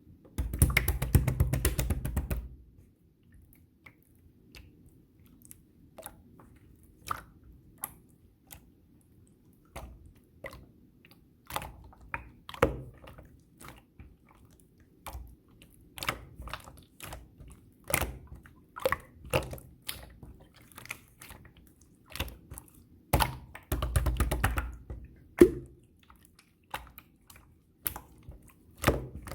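Pink clear slime being squished and poked by hand, making irregular sticky clicks and pops. Two longer, louder stretches of rapid crackling come near the start and again about three-quarters of the way through.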